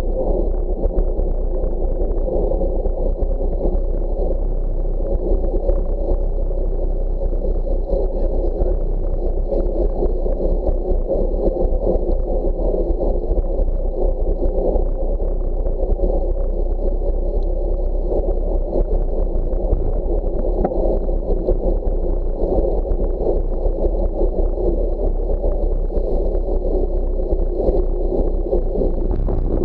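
Steady rolling noise of a road bicycle ridden at speed on wet asphalt, tyre noise mixed with wind rushing over a bike-mounted camera's microphone.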